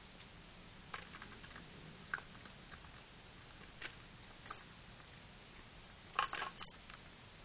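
A fox eating from a metal food bowl: scattered crunches and clicks, with a quick cluster of louder ones about six seconds in.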